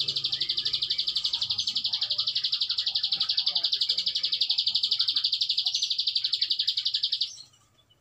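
Caged prenjak alang-alang, a small prinia, singing its long rapid trill: a fast, even, high-pitched rattle held without a break, which cuts off suddenly about seven seconds in.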